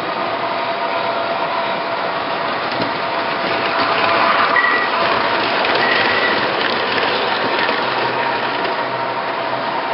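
O-gauge three-rail model subway train running: a steady rush of wheels on the rails with an electric motor hum, a little louder around the middle as the cars pass close by.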